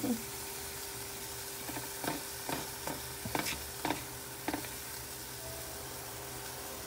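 Diced shallots sizzling softly in oil and vinegar in a nonstick frying pan, the pan not yet fully hot, while a silicone spatula stirs and scrapes them in about six short strokes between two and five seconds in.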